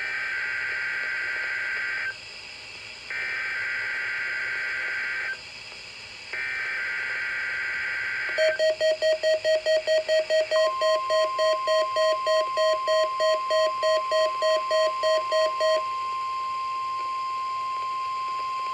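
NOAA Weather Radio alert signal: three buzzy bursts of SAME digital header data, each about two seconds long with a second's gap between them. Then comes a rapid electronic beeping, about four beeps a second for about seven seconds, and about two seconds into the beeping the steady 1050 Hz warning alarm tone starts and holds on, marking the weekly test of the warning device.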